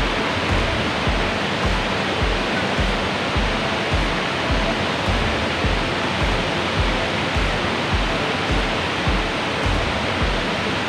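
Steady rushing roar of a waterfall, with background music over it whose bass beat comes just under twice a second.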